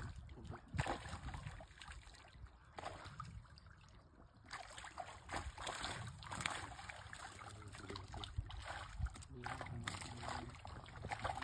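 Shallow muddy water sloshing and splashing as a hand scoop net on a pole is swept through it and lifted, in irregular splashes.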